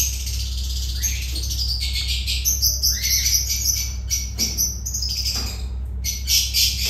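Caged lovebirds chirping and chattering: many high-pitched, overlapping chirps, a few sliding down in pitch.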